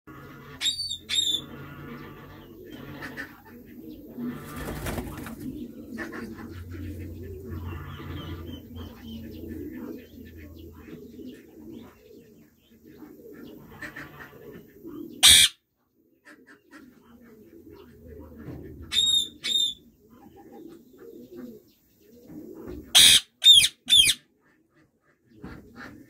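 Ring-necked parakeets giving short, shrill calls now and then: two quick chirps near the start, a loud screech about midway, two more chirps a few seconds later and a loud burst of three harsh screeches near the end. Underneath runs a low, continuous warbling murmur, with a brief rustle around five seconds in.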